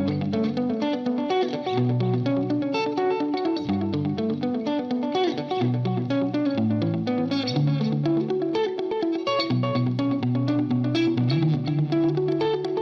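Ibanez GRX70DX electric guitar recorded direct through a Helix Native amp simulator, playing a continuous riff of picked notes and chords.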